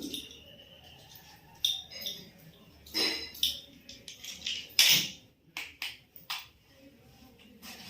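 Irregular clicks, clinks and knocks of tools and parts being handled, with the loudest knock about five seconds in and a quick run of sharp clicks just after.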